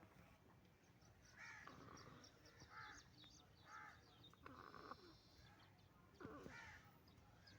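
Faint, raspy snore-like sounds from a sleeping chicken, about five short ones roughly a second apart.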